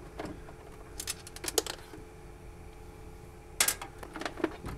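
Small metallic clicks and rattles of screws and a screwdriver as the mounting screws of a Yaskawa F7 variable frequency drive are backed out and the drive is worked loose, coming in two short clusters, about a second in and near the end.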